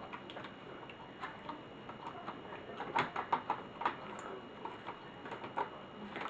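Irregular small clicks and taps of laptop parts being handled: plastic and metal pieces and screws knocking and snapping, with a burst of louder clicks about three seconds in.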